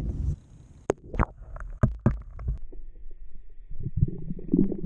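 Muffled water sounds from at and below the surface as a spotted bay bass is lowered back into the water by hand: scattered knocks and splashes, mostly in the first couple of seconds, over a low rumble.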